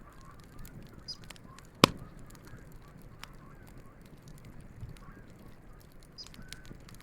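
Wood campfire crackling, with scattered small ticks and one loud sharp pop about two seconds in. Geese honk faintly and repeatedly in the background.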